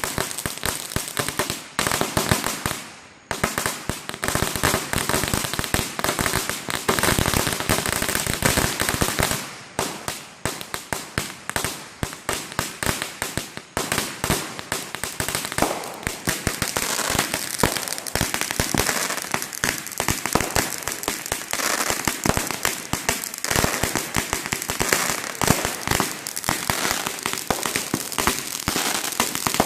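Fireworks going off: a dense, rapid run of sharp bangs and crackles, many per second, like strings of firecrackers, with two brief lulls.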